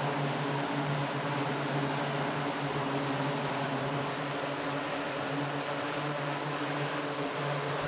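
The E-2D Advanced Hawkeye's twin turboprop engines running steadily on deck with propellers turning: an even rushing noise over a constant low drone and a faint high whine. The aircraft is chained down and about to power down.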